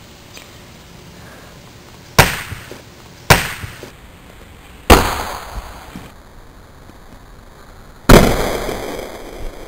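Three sharp knocks as a brick is slammed down on a pressurised plastic bottle, then a loud bang about eight seconds in as the bottle bursts and shoots its cap off, followed by a hiss of spray that fades over a second or so.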